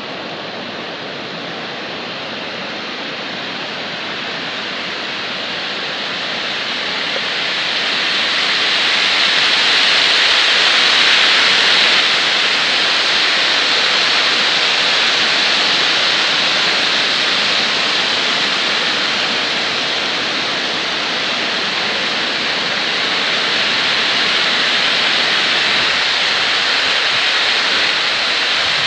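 Water discharging through a dam and churning as whitewater in the tailwater below: a steady rushing noise that grows louder about eight seconds in and holds.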